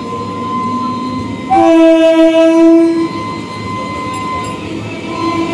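Approaching train's locomotive horn sounding one loud blast of about a second and a half, starting sharply about a second and a half in, over a steady background rumble.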